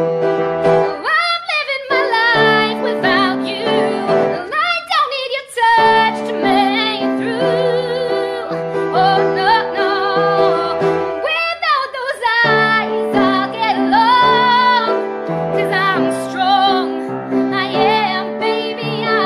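A woman singing solo with piano accompaniment, holding long notes with vibrato over sustained piano chords.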